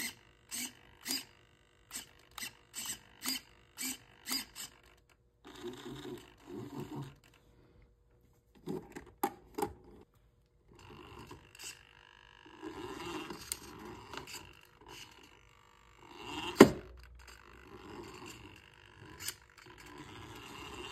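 Hacked toy RC car's steering servo buzzing in quick short bursts as it swings left and right, then longer stretches of its small drive motor and gears whirring. A sharp knock about two-thirds of the way through.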